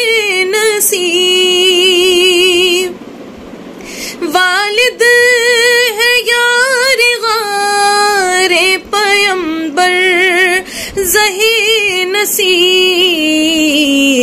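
A woman singing an Urdu devotional poem (manqabat) unaccompanied, in long held notes with a wide, wavering vibrato. She pauses for about a second around three seconds in, then sings on.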